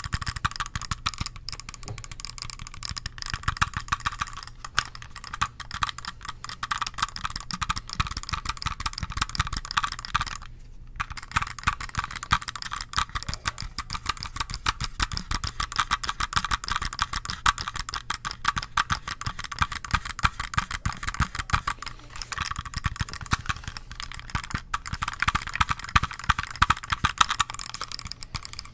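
Rapid fingertip tapping on an Acer computer mouse's plastic shell mixed with clicking of its buttons: a dense, fast stream of small clicks, with a brief pause about ten seconds in.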